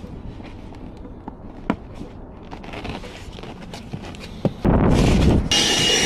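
A few faint clicks and handling noises, then near the end a vacuum cleaner is switched on and runs loudly with a steady high-pitched motor whine.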